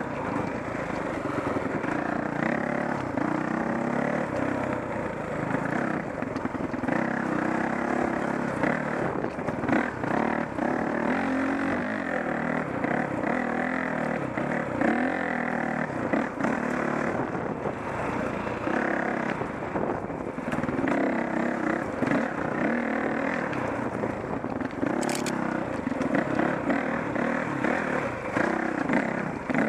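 Dirt bike engine running as the bike rides rocky single track, the throttle opening and closing so the engine note rises and falls, with frequent knocks and rattles from the bike over rough ground.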